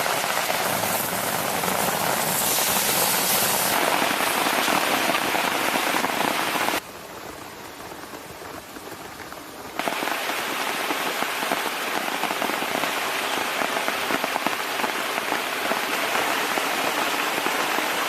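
Pork-belly-wrapped potato salad rolls sizzling and crackling as they fry over a campfire. The sizzle drops suddenly to a much quieter level for about three seconds midway, then comes back.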